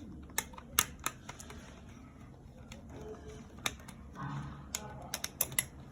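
Scattered small, sharp clicks and taps from a double wall socket and its wires being handled while the conductors are connected, with a faint voice murmuring briefly about two thirds of the way through.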